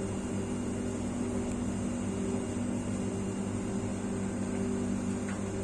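Steady electric hum of a shop's refrigerated display cooler running, with several steady low tones and no change in level.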